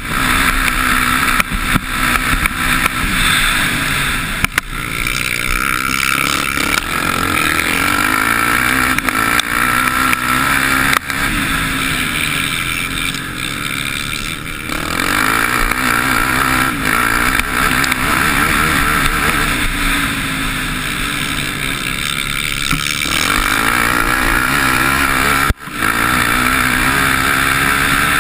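Motocross bike engine at race pace, heard from on board, its revs rising and falling repeatedly as the rider works the throttle and changes gear.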